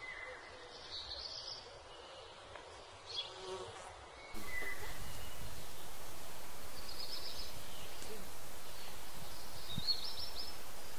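Quiet outdoor background, then about four seconds in a steady buzzing of flying insects cuts in suddenly and holds level, with a few short high chirps over it.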